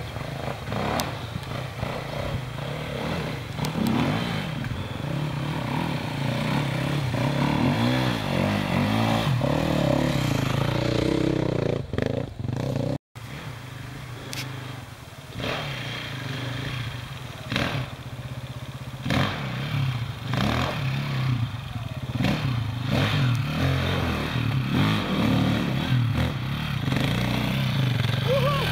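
Off-road trail motorcycles ridden along a muddy track, their engines revving up and down. One bike comes close and passes near the end. The sound cuts out briefly about thirteen seconds in.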